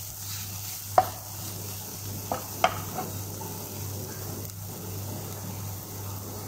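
Chopped onion, garlic and ginger sautéing in a non-stick pan with a faint, steady sizzle while a wooden spatula stirs them. The spatula knocks lightly on the pan about a second in and a few times around two to three seconds in.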